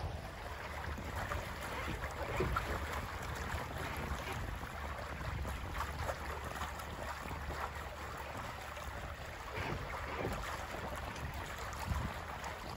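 Water rushing past the hull and hissing in the wake of a small sailboat under sail in light wind, with wind rumbling on the microphone.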